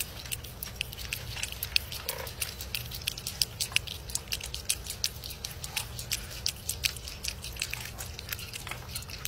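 A long-haired cat lapping water from the bowl of a plastic gravity water dispenser: a steady run of small wet clicks, a few per second.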